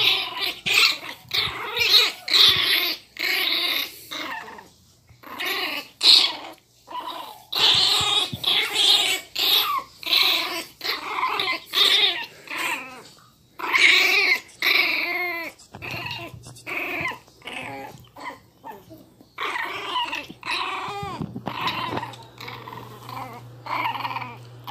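Miniature pinscher puppy growling angrily in a rapid string of short, high-pitched growls and yaps, with a few brief pauses.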